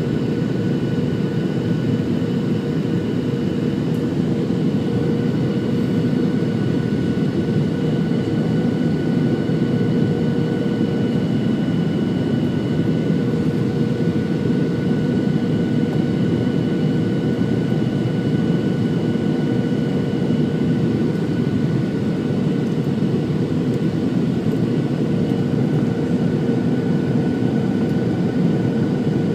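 Boeing 737-700 cabin noise heard from a window seat on approach: the CFM56-7B engines and the airflow make a steady roar, with a few fixed whining tones over it.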